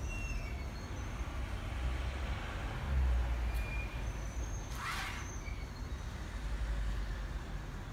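Small four-wheel robot car's geared DC motors and wheels running over a wooden floor as it follows a lane line: a steady low rumble with a few brief high whines. A short burst of noise about five seconds in.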